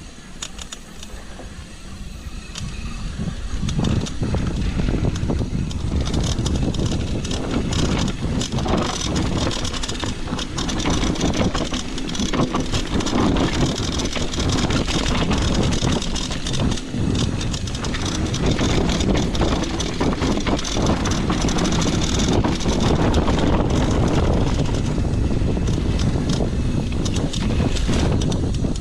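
Mountain bike riding down a trail: tyre noise and rattling over rough ground, with wind buffeting the microphone, getting louder about four seconds in.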